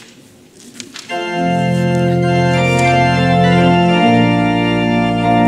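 Organ begins playing about a second in, holding sustained chords as the introduction to a hymn.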